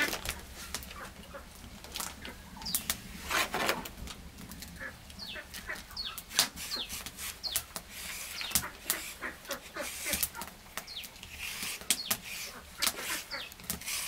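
Chickens clucking and peeping, with many short high chirps scattered through. Sharp clicks and scrapes run alongside them throughout.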